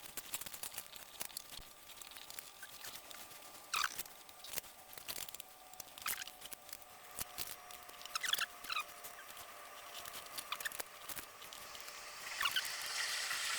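Handling noises of a power cable being pushed into a MIG welder's housing: scattered scratching, rustling and light clicks, growing louder near the end.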